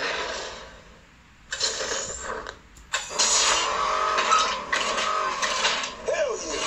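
Soundtrack of a video file played back on an Android car head unit: a busy mix of vehicle noise and voice. It is quieter for the first second and a half and gets fuller from about three seconds in.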